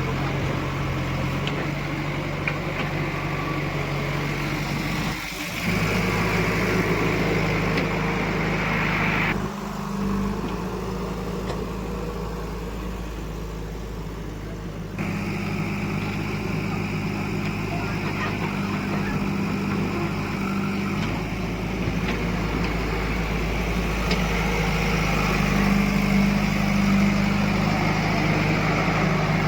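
Heavy diesel machinery engines running steadily at idle to moderate speed, the sound changing abruptly a few times.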